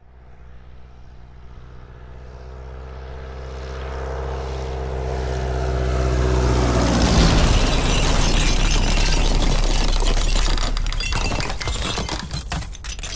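Jet airliner flying low overhead: its engines grow louder as it approaches, the engine tones drop in pitch as it passes, and the roar peaks and then fades, breaking into crackles near the end.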